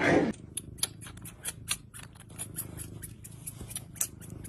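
Domestic cat nibbling and chewing on a human finger: a run of quick, irregular clicking and smacking sounds from its teeth and mouth, several a second.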